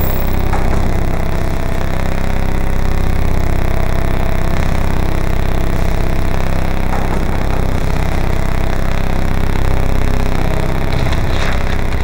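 Synthesized heavy machine sound effect from a Native Instruments Massive synthesizer: a loud, dense, grinding mechanical drone, heaviest in the low end, with a few sharp crackling hits near the end.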